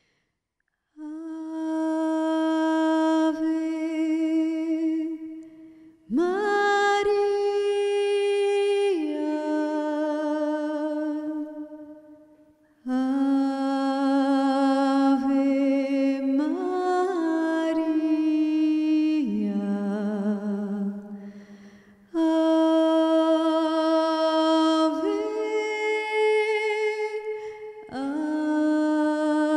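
A woman singing a hymn to Mary unaccompanied into a handheld microphone. She holds long notes with vibrato in several long phrases, with short pauses for breath between them.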